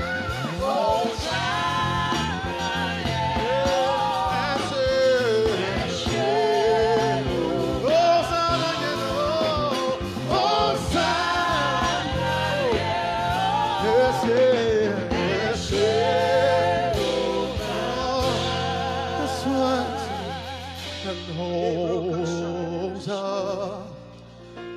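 Gospel worship singing: a voice sings long, wavering, drawn-out runs with vibrato over held instrumental chords, dying down near the end.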